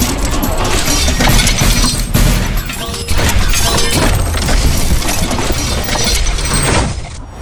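Loud crashing and shattering hits, repeated roughly once a second, over music: trailer-style impact sound effects.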